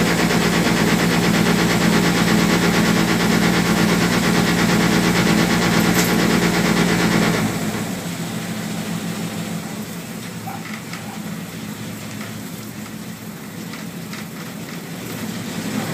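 Small passenger ferry's engine heard on board, running steadily at cruising speed, then throttled back about seven seconds in as the boat slows to come alongside a dock, leaving a much quieter low hum.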